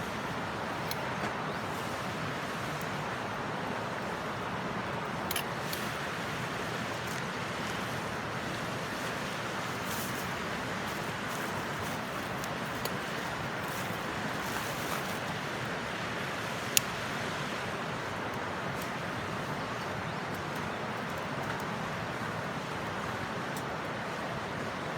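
Wood fire burning with scattered sharp crackles and pops over a steady rushing noise; the loudest pop comes about two-thirds of the way through.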